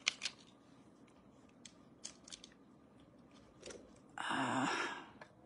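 Faint scattered clicks and taps of makeup brushes and an eyeshadow palette being handled. About four seconds in comes a brief, louder breathy rush of noise lasting under a second.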